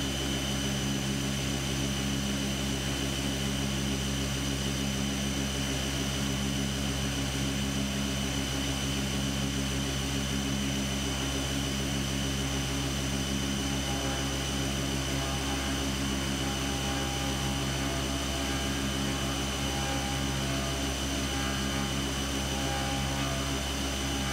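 Fadal CNC vertical mill's spindle running an end mill through an aluminum footpeg under flood coolant: a steady machine drone with a high, constant spindle whine and the hiss of coolant spraying.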